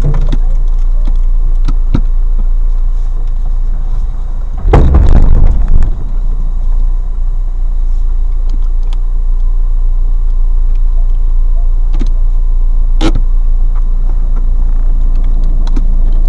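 Car engine idling with a steady low rumble, picked up by the dashcam inside the parked car. A loud knock and rustle come about five seconds in, and a single sharp click near 13 seconds.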